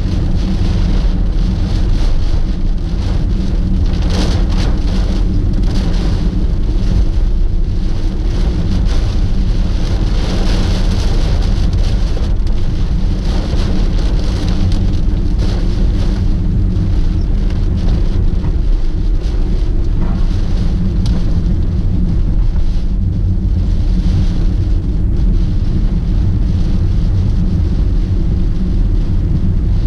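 Heavy typhoon rain hitting a moving first-generation Honda Freed, heard from the car's cabin, over a steady low rumble of engine and road noise. The rain hiss swells and eases but never stops.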